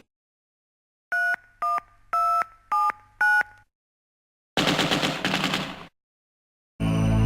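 Five telephone keypad dialing beeps (DTMF tones), each a short beep of two tones at once, pitched differently from key to key. Then a rough, rattling noisy burst lasts a little over a second, and music starts near the end.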